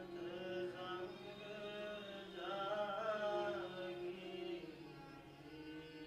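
Gurmat Sangeet kirtan in Raag Kedara: a male voice sings long, gliding held notes over a steady harmonium drone, accompanied by a bowed string instrument. The singing swells loudest around the middle.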